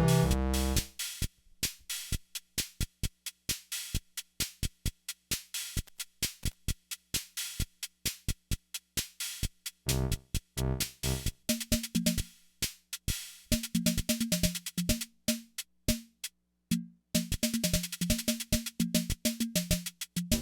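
Yamaha PS-20 portable keyboard's built-in rhythm machine playing a preset drum pattern. About a second in the chord-and-bass accompaniment stops, leaving only the electronic drum clicks; about halfway short pitched bass notes come back in with the beat.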